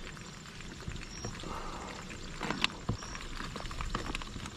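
Live blue crabs clicking and scraping against one another and a plastic tub as a crab is lowered in, with a few sharper knocks a little past halfway.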